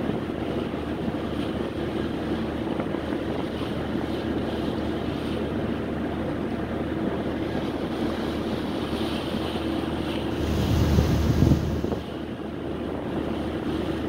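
Steady hum of a ship's engines and propellers under way, with water rushing along the hull and wind on the microphone. A stronger buffet of wind noise hits the microphone about ten seconds in and lasts over a second.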